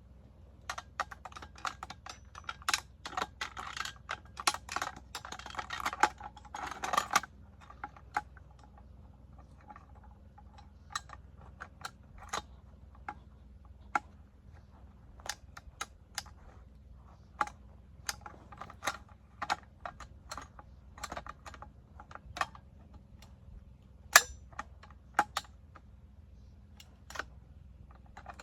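Sharp clicks and clacks of a PKM machine gun's metal parts being handled during stripping or reassembly. A dense flurry of clicks runs through the first seven seconds, then single clicks come every second or so, the loudest about 24 seconds in.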